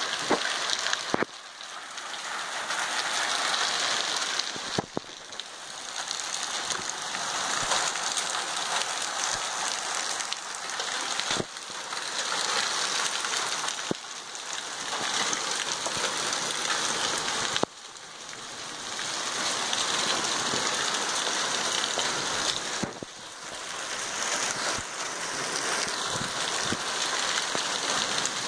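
Heavy downpour of rain and hail, a dense steady hiss with a few sharp single hits of hailstones. The noise drops away suddenly several times and swells back up within a second or two.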